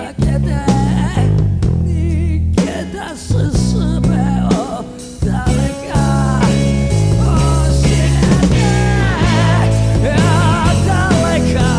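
Japanese rock song: a male singer sings the lines 逃げ出す術を誰か教えて and ああ誰か孤独なおいらを愛して, holding notes with a wavering vibrato, over a full rock band with guitar, bass and drums.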